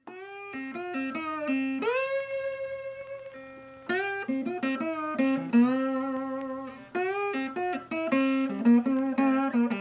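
Intro music: a solo guitar playing a plucked melody, with several notes bent or slid up into pitch.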